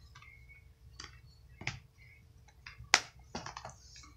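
A few light clicks and taps of slim plastic DVD cases being handled, the sharpest about three seconds in.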